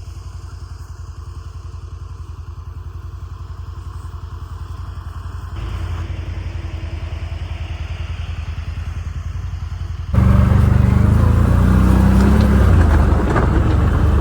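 A CFMOTO ATV's engine running steadily while the quad is ridden. The sound jumps abruptly louder twice, about five and ten seconds in, the second time with much more noise mixed in.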